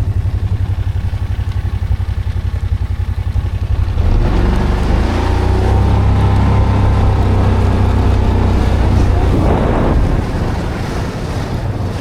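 An engine running with a fast low pulsing. About four seconds in it gets louder and a steady hum rises over it, then it eases back down near the end.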